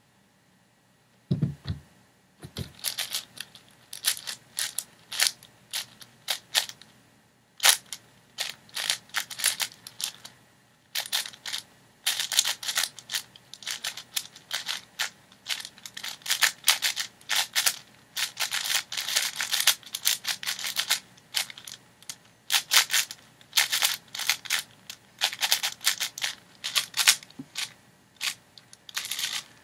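A 6x6 speed cube being turned rapidly: quick runs of plastic layer-turn clicks and clacks in bursts, with short pauses between them. A soft low thump comes about a second and a half in, before the turning starts.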